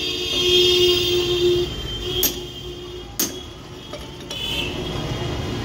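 Hammer blows on a box spanner tightening an e-rickshaw's wheel hub nut: two sharp metallic strikes about a second apart near the middle, with a steady metallic ringing tone through the first half.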